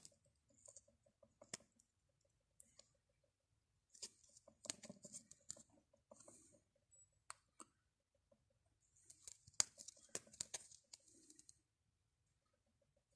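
Faint clicks and crinkling of a clear plastic coin holder being turned in the fingers. There is a sharp click at the start, then two spells of rustling about four and nine seconds in, with near silence between.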